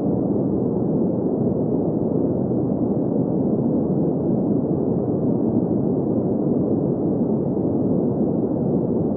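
Steady, unchanging green noise: an even rushing hiss with its weight in the low and middle range and nothing high above it.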